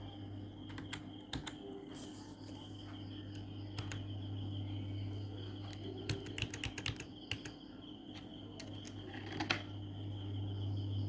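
Computer keyboard typing: scattered single keystrokes, then a quick run of keystrokes about six seconds in, as text is entered into a word-processor table. A steady low hum runs underneath.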